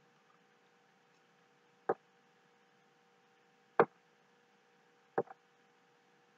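Three sharp computer mouse clicks, roughly two seconds apart, the last one a quick double click, over a faint steady electrical hum.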